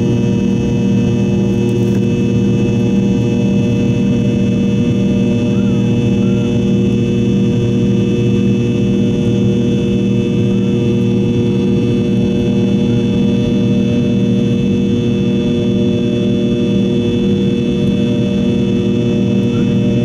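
Rolls-Royce Tay turbofan of a Fokker 70 airliner, heard inside the cabin right beside the rear-mounted engine, running steadily at climb power after takeoff. It is a loud even rush with a deep hum and several steady whining tones that do not change.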